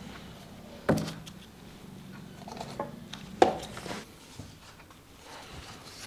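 A few sharp knocks and light handling sounds of a phone, pen and books on a desk: one knock about a second in, then three more between about three and four seconds in.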